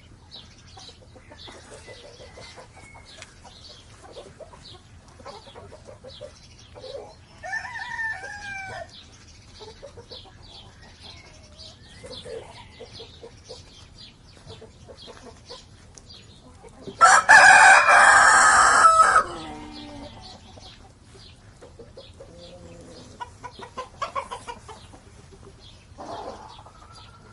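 A rooster crows once, loud, for about two seconds about two-thirds of the way through. Around it, small birds chirp steadily and a few fainter calls come and go.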